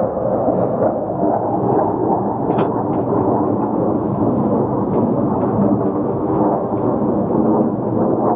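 Steady, loud rumbling roar of fighter jets flying overhead.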